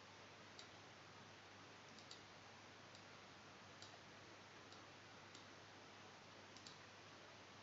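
Near silence: faint room hiss with about nine soft computer mouse clicks at irregular spacing, made while adjusting a potentiometer in a circuit simulator.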